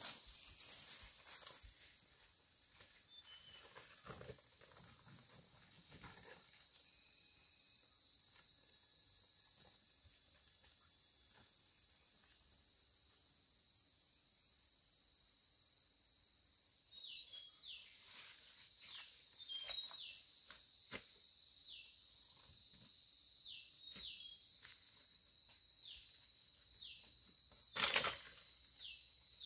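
Outdoor insect chorus: a steady high-pitched drone with scattered rustles and clicks. It drops abruptly about halfway through. After that, short falling chirps repeat every second or two and a few louder rustles or knocks sound, the loudest near the end.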